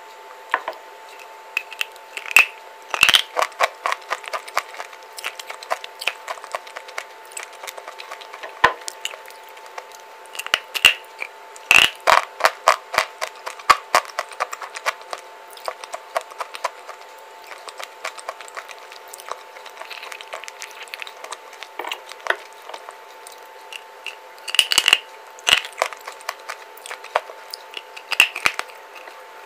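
Bites into a white clay bar coated in red clay paste: crisp cracks and crunches come in clusters as it is chewed, over a faint steady hum.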